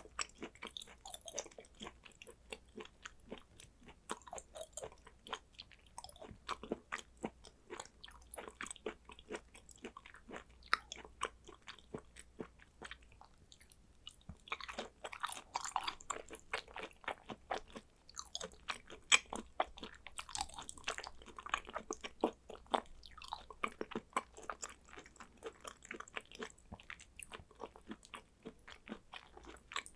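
Close-miked chewing of thin slices of raw Korean beef (hanwoo pyeonyuk-hoe): a steady run of irregular mouth clicks and bites, with a short pause about halfway through.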